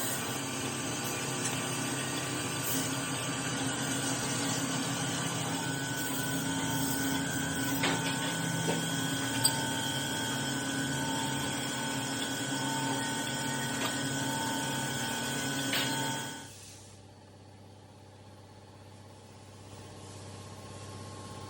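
TIG welding on stainless steel pipe: a steady hum and hiss that cuts off sharply about 16 seconds in, leaving a fainter hiss.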